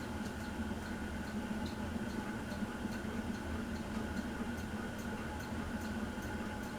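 Harbor Breeze Palm Breeze ceiling fan running on high speed: a steady motor hum with a faint higher whine and light ticking about three times a second.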